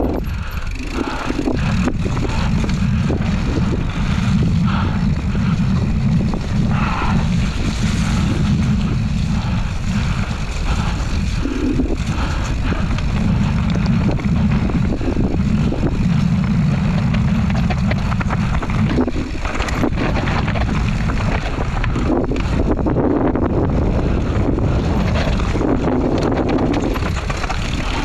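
Wind buffeting a bike-mounted camera's microphone as a mountain bike rides fast down a dirt trail, with the rumble of the tyres and frequent knocks and rattles of the bike over the rough ground.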